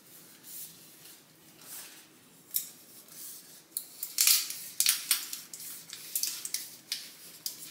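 A hard-to-open bottle of dark soy sauce being worked open by hand. It gives a string of short, sharp clicks and scrapes that come thick and fast from about halfway through.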